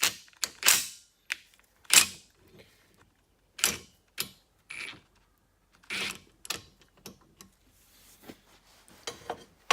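Irregular sharp clicks and knocks, about a dozen, as a worn tool is worked to press a universal joint through a driveshaft yoke.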